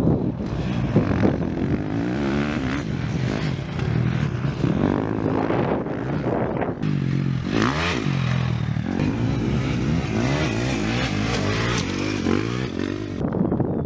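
KTM 350 single-cylinder four-stroke dirt bike engine revving hard, its pitch rising and falling again and again as the rider accelerates, shifts and backs off through the sand track.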